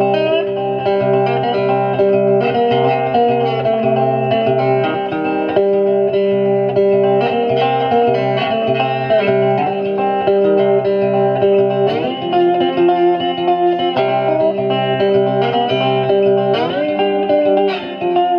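Background music: plucked guitar with a steady rhythm.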